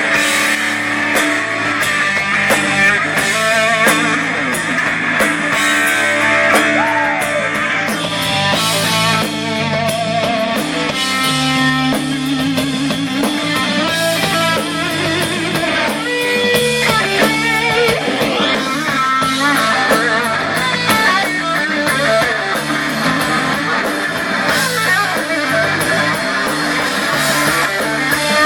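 Instrumental break in a rock song: electric guitar playing bending lead lines over bass and drums.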